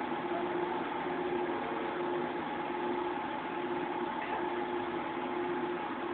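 Steady mechanical hum with two held tones over an even hiss, from a running machine such as a motor or fan in the room.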